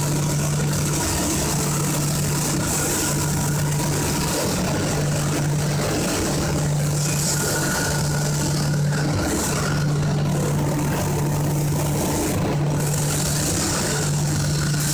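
Automatic spray painting line for long wood panels running: a steady din of machinery and hissing air, with a low hum that breaks off briefly every second or two.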